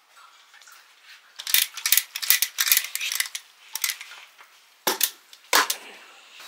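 Aluminium pot of drained noodles clinking and clattering as it is handled over a plastic bucket, followed by two heavier knocks a little under a second apart as it is set down.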